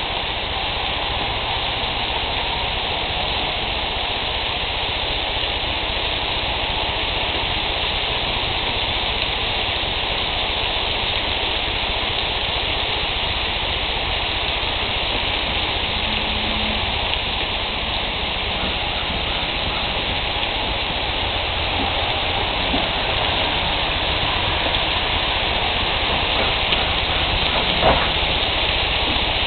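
Bacon-wrapped quail sizzling steadily on a grill, an unbroken frying hiss.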